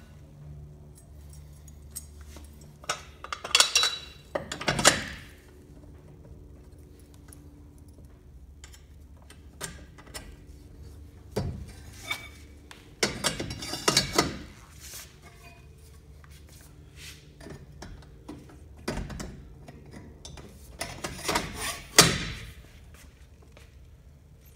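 Metal clanks and knocks from a welded square-tube steel wheel jack being handled and fitted to an aircraft wheel's axle. They come in three clusters, with the sharpest knock near the end.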